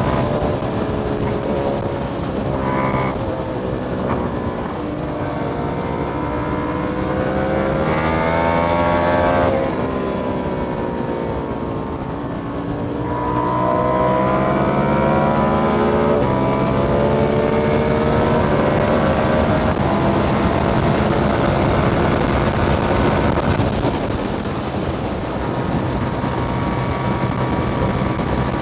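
2021 KTM Duke 890R's parallel-twin engine through an Austin Racing catless exhaust, revving up through the gears under hard acceleration. The revs drop for a few seconds around the middle as it slows, then it pulls hard again before settling at a steadier speed.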